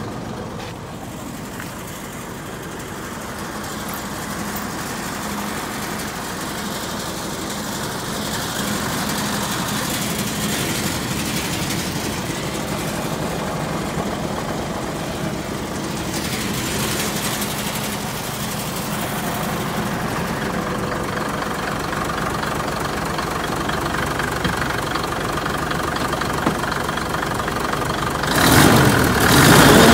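Mitsubishi Fuso Super Great truck's diesel engine idling steadily, then much louder near the end, with its pitch briefly wavering up and down.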